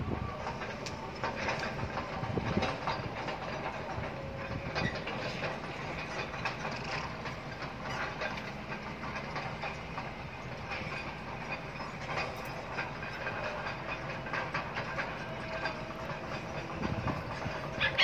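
Steady rumble and hiss of outdoor background noise, with faint scattered clicks.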